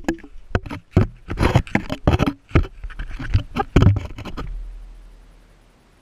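Shallow sea water splashing and knocking against a hand-held action camera at the waterline: a rapid, irregular run of thumps and splashes, giving way about four and a half seconds in to a low rumble that fades out.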